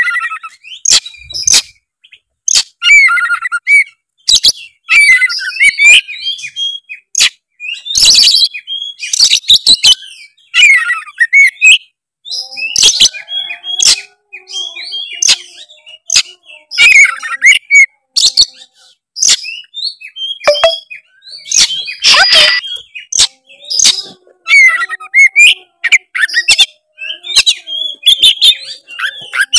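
Oriental magpie-robin (kacer) in loud, continuous full song: a varied run of whistles, trills and sharp rasping notes in quick phrases with short gaps. It is the energetic rival-challenging song that is played to provoke other kacer into singing.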